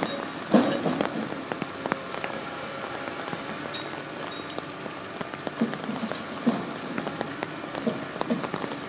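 Steady patter of rain, with scattered irregular knocks and crunches from a long-reach demolition excavator tearing into the concrete-and-brick building.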